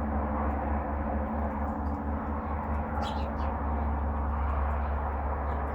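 Small birds chirping a few times, once about three seconds in and again near the end, over a steady low rumble and hiss.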